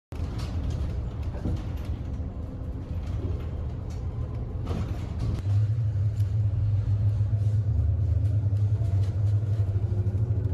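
Engine and road noise inside a moving car: a steady low rumble that grows louder about halfway through.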